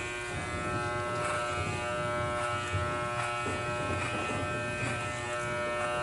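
Electric hair clippers running with a steady buzz during a home haircut, the tone changing slightly about halfway through.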